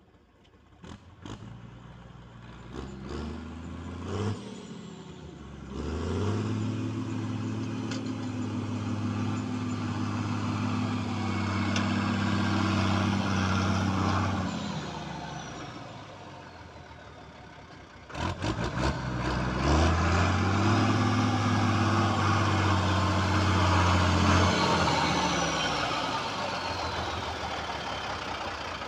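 Valmet 148 tractor's turbocharged MWM 229.6 six-cylinder diesel revved up and held twice, each time for several seconds, then let back down to idle. Each time the revs drop, a thin high whistle falls away with them, and a few clicks come near the start and just before the second rev-up.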